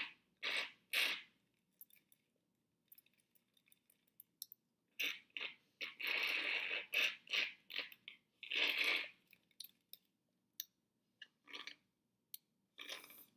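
Small plastic pieces being handled: light clicks and clatters, with several short scrapes and rustles, the longest about halfway through.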